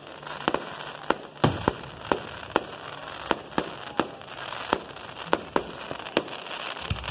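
Fireworks display: a rapid, irregular series of sharp bangs, about two a second, over steady crackling, with a louder deep boom about one and a half seconds in.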